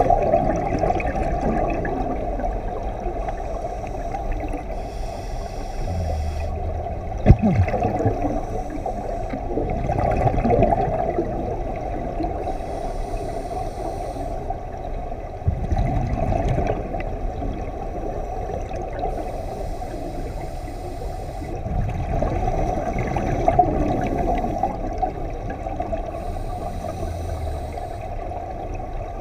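Scuba diver breathing through a regulator underwater: a hiss of inhaling about every six to seven seconds, with gurgling rushes of exhaled bubbles in between, all heard muffled. A single sharp knock about seven seconds in.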